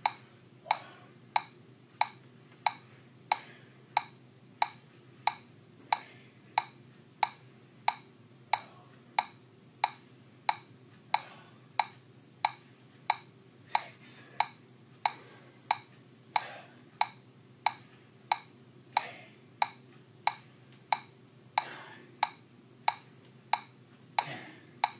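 Metronome ticking steadily at about 92 beats a minute, keeping the beat for the exercise.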